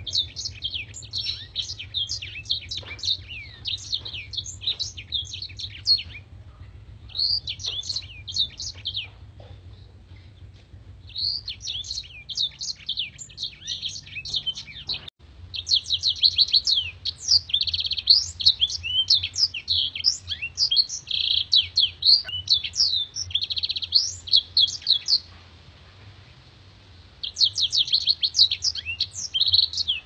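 Caged blackthroat (black-throated canary) singing in long phrases of rapid, sharp, high chirps and trills, broken by short pauses of a second or two.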